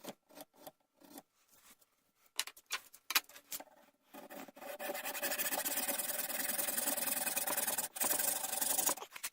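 A piece of horn being cut and shaped with a tool: irregular short scraping strokes, then from about four seconds in a steady, continuous grinding-rasping noise with two brief breaks.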